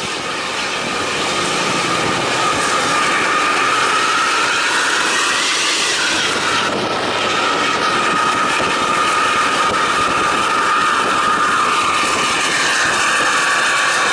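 Intercity buses running hard at speed, loud engine and exhaust noise with a steady high whistling tone over it, building over the first couple of seconds.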